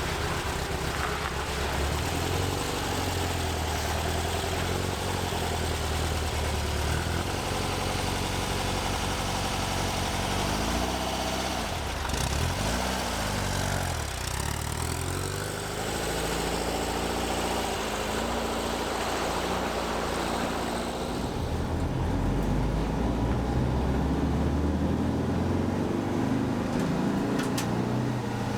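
A 1964 VW bus's air-cooled flat-four engine running under way. The engine note dips and climbs again a few times about halfway through, as with gear changes, then settles into a steadier, louder pull.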